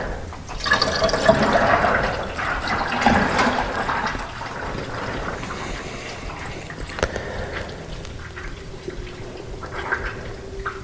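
Coolant pouring and gurgling, strongest over the first few seconds and then easing off. A faint steady tone comes in about eight seconds in.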